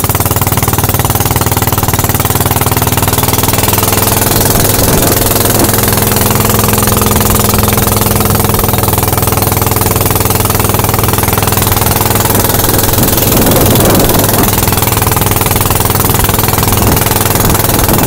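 A boat's engine, typical of a Thai long-tail boat, running steadily at speed, with water rushing and spraying along the hull. The noise briefly gets louder about thirteen seconds in.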